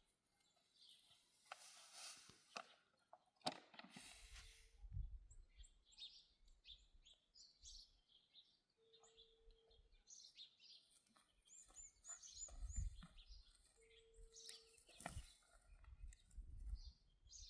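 Faint outdoor birdsong: scattered high chirps and a quick run of about five trilled notes, with low gusts of wind rumbling on the microphone and a couple of rustling bursts near the start.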